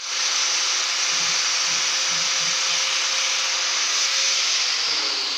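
An electric power tool's motor, switched on suddenly and running steadily. Near the end its pitch starts to fall as it begins to wind down.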